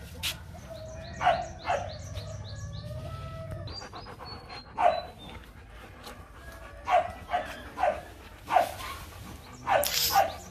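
Young Rottweilers play-fighting, giving about eight short barks and yelps, most of them in the second half and the loudest near the end.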